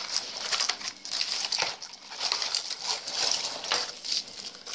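Hard plastic fishing lures and float balls clicking and rattling against each other and the cardboard as hands rummage through a box of them, with the crinkle of plastic wrapping.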